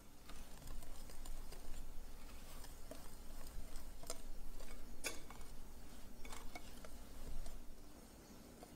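Wire whisk stirring dry flour mix in a glass bowl: a scratchy swishing through the powder with a few sharper clinks of the wires on the glass near the middle, stopping about a second before the end.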